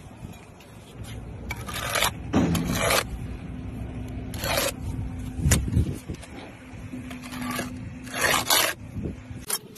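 Bricklayer's steel trowel scraping wet mortar along a course of red bricks, in a series of about six short scrapes as the mortar is spread and trimmed and bricks are bedded.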